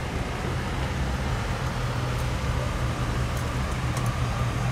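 Engine of a lowered custom early-1950s Buick hardtop running at low speed as the car cruises slowly past, a steady low rumble that grows a little stronger about halfway through.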